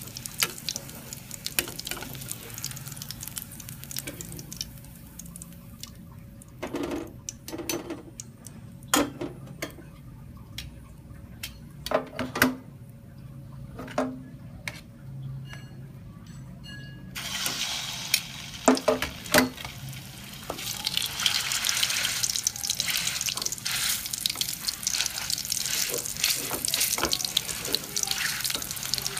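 Metal tongs and a ladle knocking and scraping against a steel wok a few times, then, just past halfway, a sudden loud sizzle that grows stronger as fish meatball paste is ladled into the hot frying oil.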